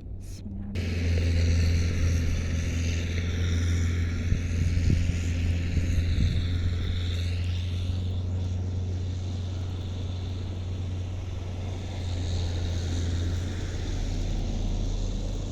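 An engine running with a steady low drone that starts abruptly about a second in and holds without a break.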